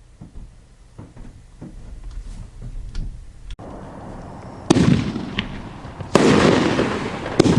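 500-gram 12-shot firework cake firing: after about three and a half quieter seconds, three shots go off about a second and a half apart, each a sudden loud report followed by a lingering noisy tail.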